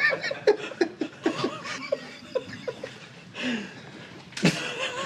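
A man laughing in short, stifled bursts, with a louder burst near the end.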